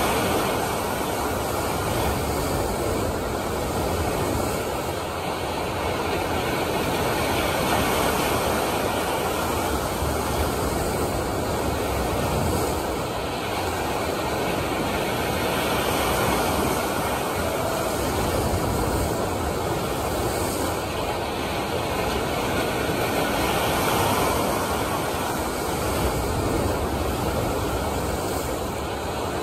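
Steady rush of machine-made waves breaking in an artificial surf pool, with a low rumble underneath, swelling and easing gently every few seconds.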